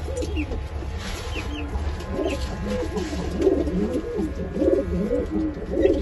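Many domestic pigeons cooing at once, their low overlapping coos running on without a break, with a few short high chirps scattered through.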